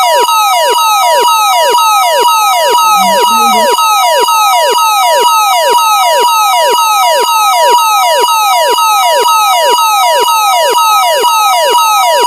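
Canadian emergency alert attention tone, a loud steady alarm that switches back and forth between two high pitches. A processing effect lays quick falling sweeps over it about three or four times a second.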